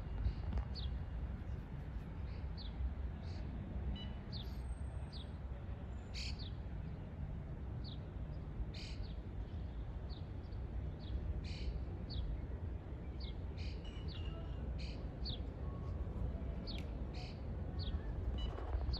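Small birds chirping, short high downward chirps one or two a second, over a steady low rumble that grows a little louder near the end.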